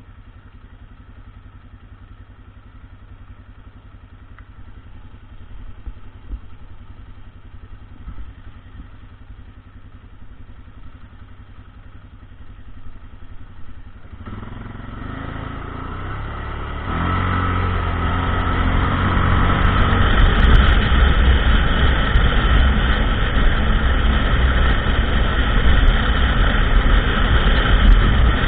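ATV engine running quietly at low revs, then picking up about halfway through and getting much louder as it pulls away and runs under load.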